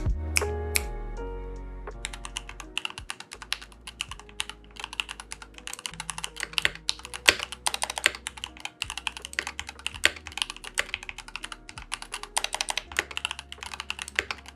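Typing on a white mechanical keyboard: a quick, irregular run of key clacks. Background music fades out in the first two seconds as the typing begins.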